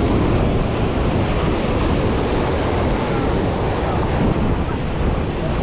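Strong wind buffeting the GoPro's microphone in a steady rumble, with surf breaking and washing over the rocks underneath.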